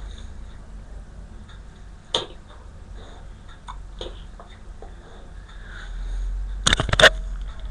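A dog snuffling and shifting about at close range, with scattered sharp clicks and rustles. The loudest cluster of clicks comes near the end.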